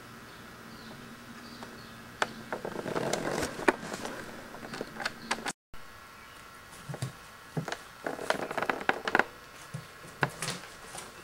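A Siamese kitten's claws and paws first scratch and rustle at the fringe of a wool rug, in a run of clicks. After a brief dropout, the kitten taps, scratches and thumps softly on a flat cardboard box as it walks over it.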